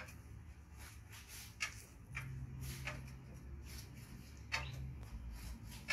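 Quiet room tone: a low steady hum with scattered faint clicks, about one or two a second.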